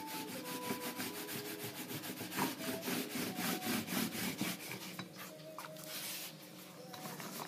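A thin wooden rolling pin is rolled back and forth over a sheet of floured homemade pie dough on a stone countertop. It makes a rapid, repeated rubbing, which eases off briefly near the end.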